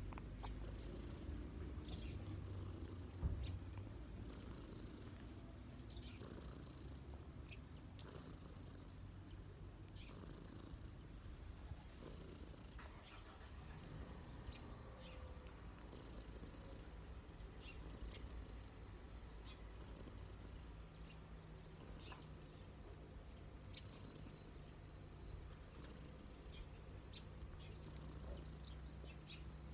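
Domestic cat purring steadily while its head is stroked, a sign of a relaxed, content cat. A single short knock about three seconds in and short high chirps now and then sit over the purr.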